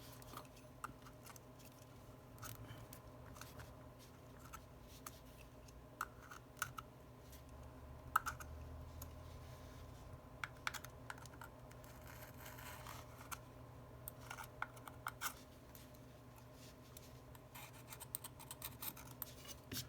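Faint, scattered light clicks and taps, irregular and spread throughout: small phone parts and repair tools being handled on a bench, over a low steady hum.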